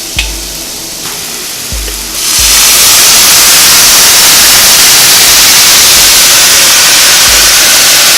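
Garlic frying in hot oil with a light sizzle, then about two seconds in a sudden loud, steady hissing sizzle as reduced-sodium soy sauce is poured into the hot pan.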